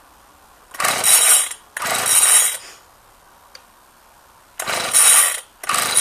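McCulloch Silver Eagle two-stroke engine being pull-started four times, in two pairs, each pull a short whir of the recoil starter as the engine turns over without firing. It won't catch because its ignition switch is off; the choke is on.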